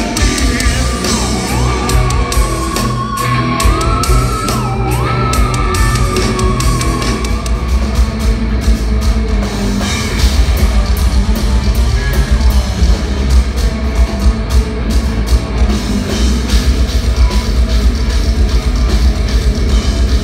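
Progressive metal band playing live at full volume: a long high held note with a couple of quick dips over the first several seconds, then the full band with heavy drums and bass from about halfway.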